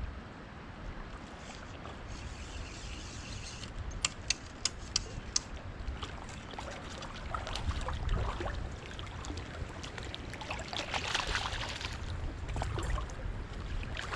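Water splashing and trickling as a hooked rainbow trout is played in, over a steady low rumble. There are five or six sharp clicks about four to five and a half seconds in, and the splashing is heaviest near the end.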